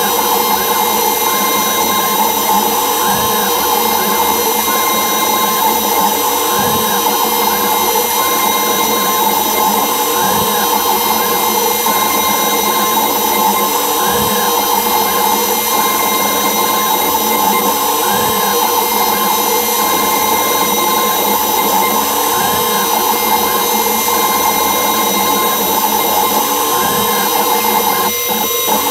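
CNC router spindle running at high speed with a fine tapered carving bit, cutting a relief with a steady, many-toned whine. A fainter tone rises and falls every few seconds as the head moves.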